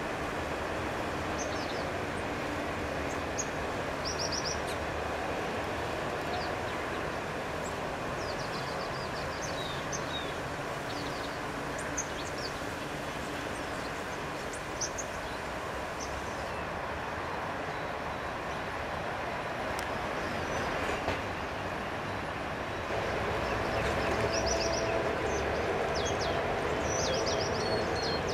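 Small birds giving short, high chirps, scattered and now and then in quick runs of four or five notes, over a steady rumble of background noise that grows a little louder near the end.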